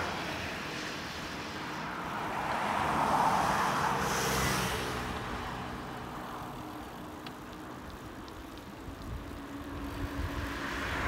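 Cars passing on a road: tyre and engine noise swells to a peak about three seconds in and fades away, and another car approaches near the end.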